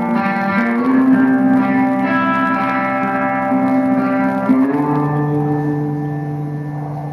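Slow, sustained guitar chords ringing with a little reverb; the harmony shifts about a second in and again past the middle, then the sound fades away near the end.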